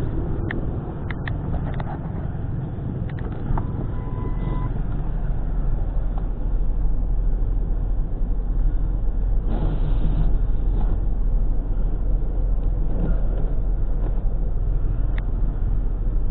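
Older Ford F-150 pickup idling with the defroster running: a steady low rumble that grows stronger about four seconds in. A few sharp clicks and a short single beep come in the first four seconds.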